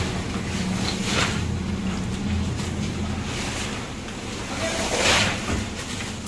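Crushed ice and a fish sliding and scraping over a steel chute and grating, with a steady machine hum underneath. There are louder swishes about a second in and about five seconds in.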